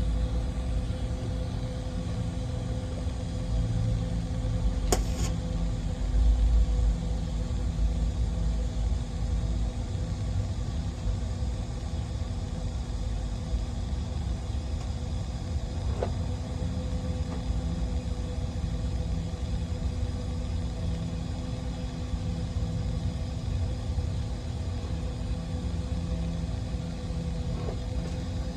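Steady mechanical hum over a low rumble, running unchanged throughout, with a few faint clicks.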